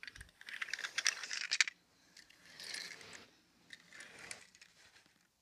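Small die-cast metal toy cars clinking and rattling as they are pushed along by hand and knock together, in three bursts, the first and loudest lasting over a second.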